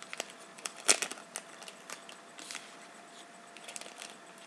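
Plastic sticker packaging crinkling and clicking as it is handled, in short irregular crackles with one sharper click about a second in.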